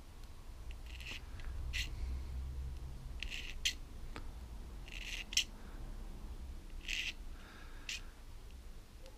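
Thin wire needle scraping through the holes of a small brass carburettor jet to clear dirt from them: about eight short scratchy strokes, often in pairs, over a low background rumble.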